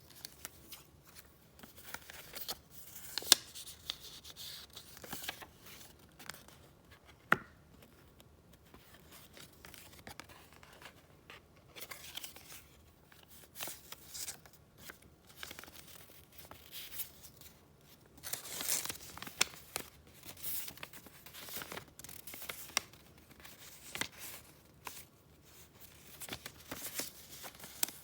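Paper and gift wrapping being handled: irregular rustling and crinkling, with two sharp taps about three and seven seconds in and a longer burst of rustling past the middle.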